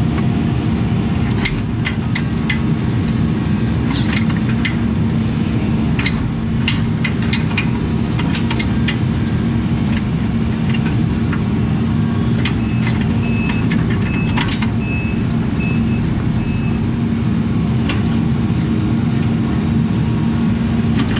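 Case CX80C mini excavator's diesel engine running steadily under load, with scattered clanks and scrapes of the bucket working dirt. Partway through, a run of short high beeps sounds for about four seconds, typical of the machine's travel alarm.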